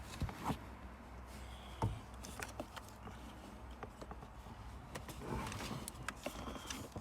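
Scattered light clicks and knocks of plastic trim and connectors being handled, with a brief rustling stretch about five seconds in.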